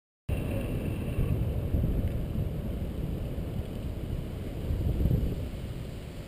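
Wind buffeting the microphone of a camera on a moving bicycle: a low rumble that starts abruptly and swells twice, about two seconds in and near the end.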